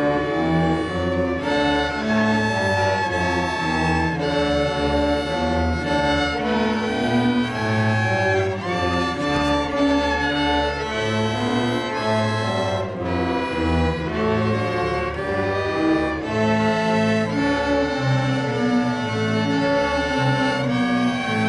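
School string orchestra of violins, cellos and double bass playing together, bowed notes changing about once a second over a full, steady bass line.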